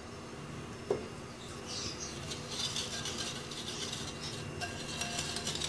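A wire whisk stirring dry flour and spices in a glass bowl: a steady scratchy scraping with many small ticks of the wires against the glass. A single light knock about a second in, before the whisking starts.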